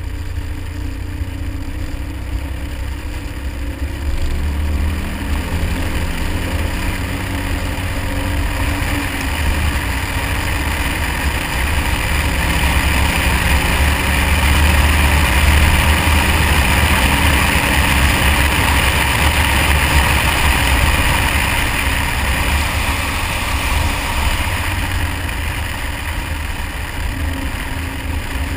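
Car driving on an ice track, heard from a camera mounted outside the car: the engine runs and shifts in pitch with the throttle, over a constant low wind rumble on the microphone and a hiss that swells in the middle and eases off near the end.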